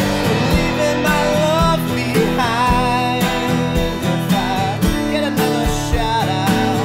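Background music: a country song with acoustic guitar and a steady beat, with a lead melody line sliding between notes.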